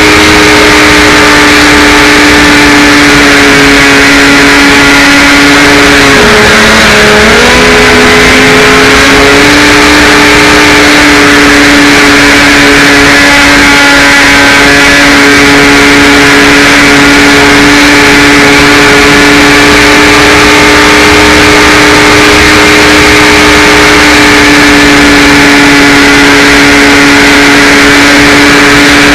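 HawkSky RC glider's electric motor and propeller running with a steady whine over a rushing hiss. The pitch sags briefly about six seconds in as the throttle eases, then comes back up.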